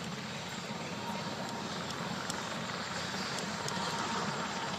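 Jet noise from two L-29 Delfin jet trainers flying in, each powered by a single turbojet: a steady rushing sound that swells slightly in the second half.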